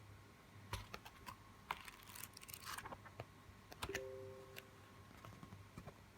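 Hands handling a book and its packaging: scattered light clicks and taps, a short stretch of rustling about two seconds in, and a brief faint tone after a click about four seconds in.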